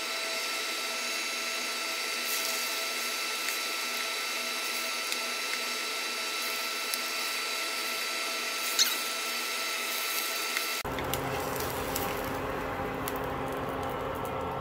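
Spam and green onion omelette sizzling in oil in a frying pan: a steady hiss with a few sharp crackles, under a faint steady whine. About eleven seconds in, the sound cuts to a fuller, deeper sizzle.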